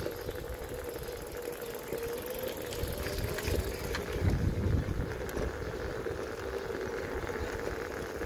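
Electric scooter riding along a paved path: a steady motor whine that dips slightly in pitch partway through, over tyre rumble. Wind buffets the microphone, strongest about four to five seconds in.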